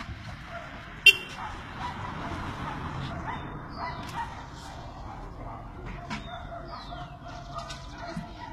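Busy street bustle with a sharp clack about a second in and a few short, falling high-pitched squeals, over low background voices.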